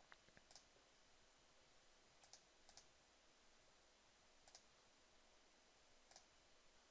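Near silence broken by faint computer mouse clicks, about seven spaced irregularly, some in quick pairs.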